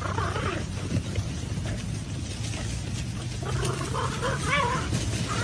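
An animal vocalizing, with short wavering calls near the start and again through the last couple of seconds, over a steady low hum.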